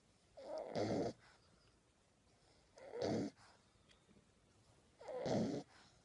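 Sleeping puppy snoring: three snores about two seconds apart, each lasting under a second.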